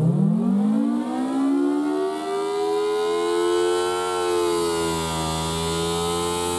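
Federal Sign & Signal Thunderbolt 1000T siren sounding its attack signal: the pitch climbs steeply from a low growl over about two seconds, then holds near the top with a slight sag about five seconds in, as the rotating horn sweeps round.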